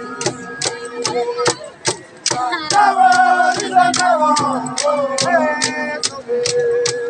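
A group singing a traditional chant over a steady beat of sharp strikes, about two and a half a second, with some voices holding long low notes beneath the melody.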